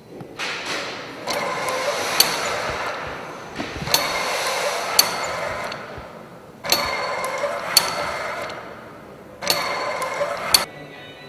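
A kinetic sculpture's mechanism running in repeated strokes, each about two seconds of clattering mechanical noise with sharp clicks, separated by short quieter pauses, about every three seconds.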